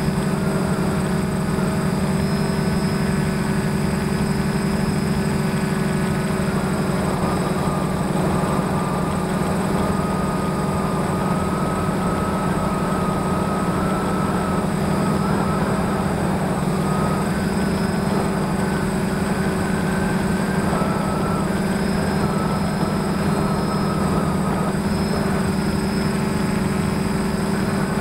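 DJI F550 hexacopter's six brushless motors and propellers humming steadily in flight, heard from a camera mounted on the frame. A strong low drone carries higher tones that drift slightly in pitch as the motor speeds change.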